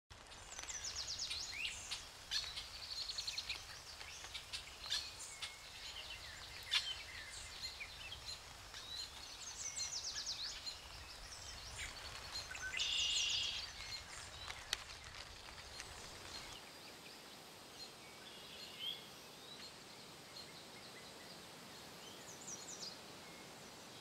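Forest ambience: several birds singing in quick chirping trills and calls, with a few sharp clicks, over a steady hiss and low rumble. About sixteen seconds in the rumble drops away and the birdsong thins to occasional calls.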